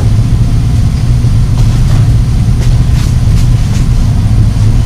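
A loud, steady low hum, with a few faint ticks over it.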